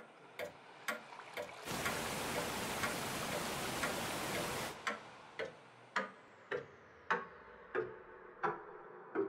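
A clock ticking evenly, a little under two ticks a second. For about three seconds near the start, a loud rushing noise rises over it and then cuts off.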